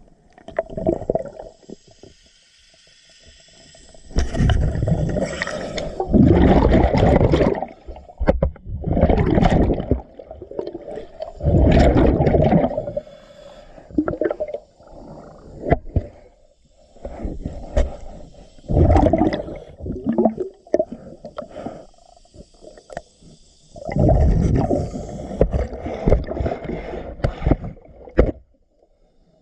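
Underwater sound of a scuba diver cleaning a boat hull: loud gurgling bursts of exhaled regulator bubbles every few seconds, with fainter scraping between them.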